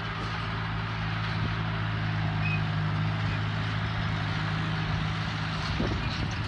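John Deere tractor engine running steadily under load as it pulls a Claas four-rotor rake, with a steady hiss from the spinning rake rotors; it grows a little louder midway as the tractor passes close.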